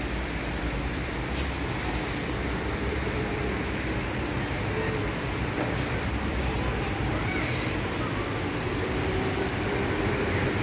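Heavy rain falling steadily over the city, a constant even hiss of rain on surfaces.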